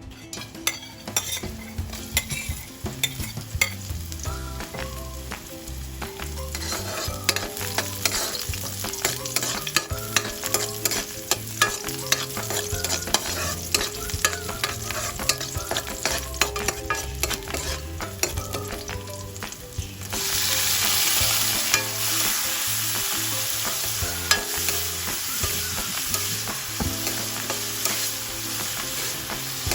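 Food frying in oil in a pan while a utensil stirs it, with many sharp scrapes and taps against the pan. About twenty seconds in the sizzle suddenly grows much louder, as when more food hits the hot oil.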